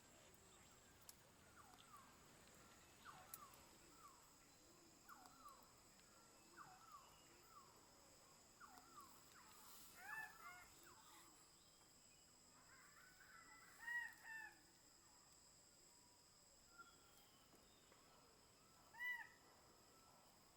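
Faint birdsong: a run of short, falling whistled notes, then three louder arched calls, each with a couple of overtones, about ten, fourteen and nineteen seconds in. A steady high insect drone runs beneath.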